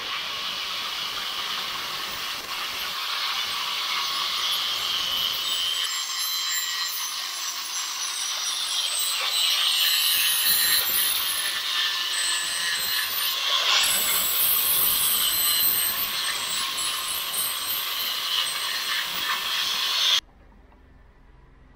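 Angle grinder with an abrasive disc grinding a stainless steel spoon-lure blank clamped in a vise: a steady, high-pitched grinding sound that stops suddenly near the end.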